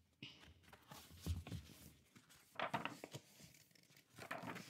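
A picture book being handled and opened, its paper pages flipped: a few short, soft rustles of paper.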